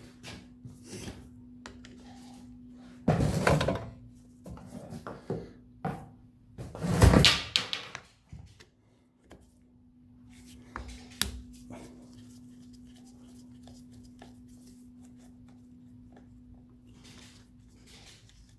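Knocks and clicks of a plastic diesel fuel filter housing being handled in a bench vise while its lid screws are undone with a screwdriver, with two louder thunks a few seconds in and sharp clicks near the middle.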